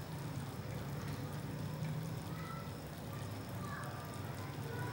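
Faint, steady sizzling and crackling of mutton liver pieces on a still-hot iron tawa after the flame is turned off, over a steady low hum.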